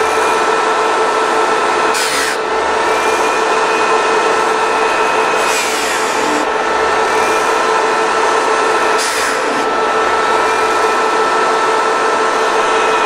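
Bench buffing motor running with a steady whine while a silver strip is pressed against its spinning grease mop, giving a rushing, rubbing sound. Three times the rubbing swells and the motor's whine dips in pitch as the piece is pressed harder into the mop.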